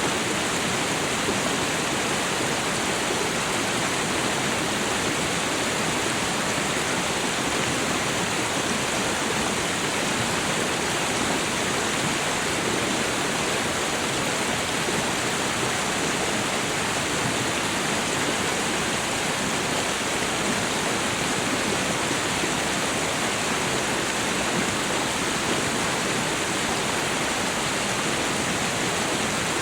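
Stream of snowmelt water running over a small waterfall, a steady, unbroken rush.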